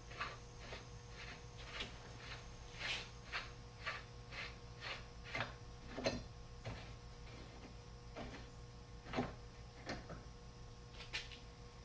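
Light metal clicks and clinks, irregular and a few a second at first, then sparser, as the hitch ball's nut and lock washer are handled and threaded onto the stud, over a steady low hum.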